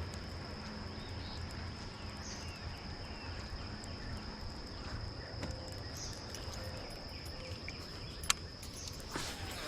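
Insects trilling in one steady, high, unbroken tone over a low background rumble, with a single sharp click about eight seconds in.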